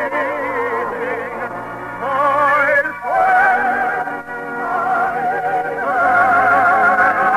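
Operatic singing voice with orchestra, holding long notes with wide vibrato. The voice climbs to a higher sustained note about three seconds in, at the close of a song from an operetta broadcast.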